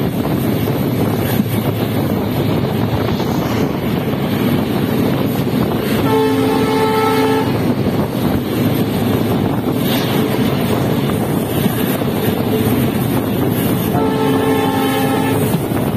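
A train running at speed, with rail and wind noise heard from a coach doorway. The WDP4 diesel locomotive's multi-tone horn sounds twice, about six seconds in and again near the end, each blast lasting about a second and a half.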